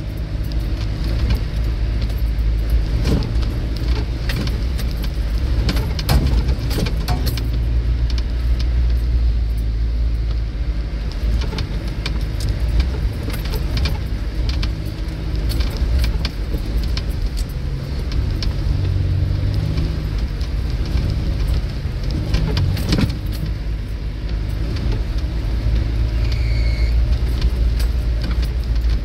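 Range Rover Classic driving off-road over a rough, wet track, heard from inside the cabin: a steady low engine drone under load, with frequent knocks and rattles from the body and loose contents as it bumps through the ruts. A short squeak near the end.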